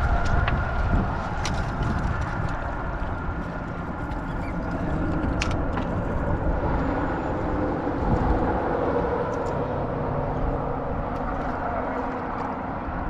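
Wind buffeting the microphone on an open boat: a steady, gusting rumble, with a few light clicks scattered through it.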